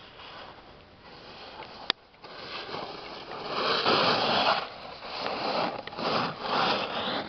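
A snowboard sliding and scraping over packed snow as a rider passes close by, in swells that grow loud about two seconds in and peak twice. A single sharp click comes just before the scraping starts.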